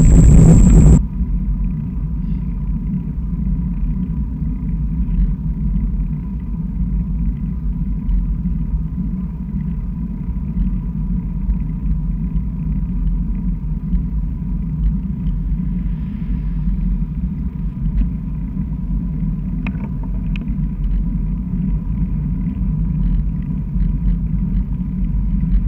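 Wind buffeting the microphone of a handlebar-mounted camera on a moving bicycle, a steady low rumble with a faint steady whine underneath. It opens with a louder hiss carrying a high steady tone that cuts off about a second in.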